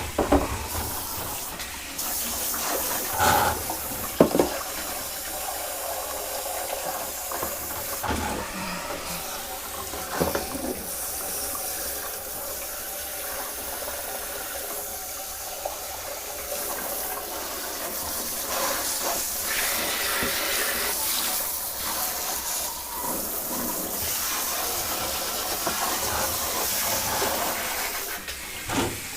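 Hand-held shower head spraying water onto a vintage sewing machine, a steady hiss of water splattering, with a few brief knocks along the way.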